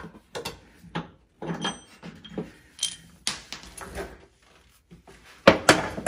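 Seatbelt angle bracket and bolt being handled on a VW Beetle's floor pan: scattered clinks, scrapes and knocks, with two louder clanks near the end.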